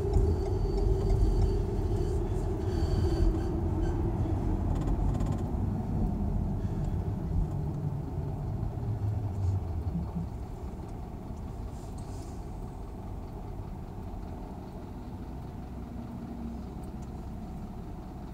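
Car engine and tyre noise heard inside the cabin, falling in pitch and fading over the first half as the car slows down and stops in queued traffic. It then settles into a low steady hum while the car stands.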